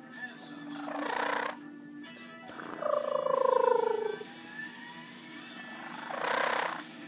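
A blue-crowned conure making affectionate love coos: a breathy burst about a second in, a drawn-out falling coo in the middle, and another breathy burst near the end.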